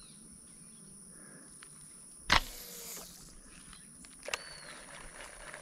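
A slingshot fishing shot: a sharp snap of the released bands about two seconds in, followed by about a second of hissing as the line pays out from the spincast reel behind the arrow. A short click follows about two seconds later.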